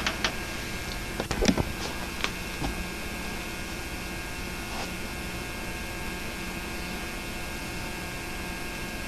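Steady mains hum and hiss from the background of a home-made narration recording over silent film, with a few sharp clicks in the first few seconds.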